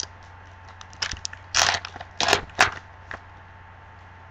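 Wrapper of a Topps Finest football card pack crinkling and tearing as it is ripped open: a quick run of short crackly bursts between about one and three seconds in.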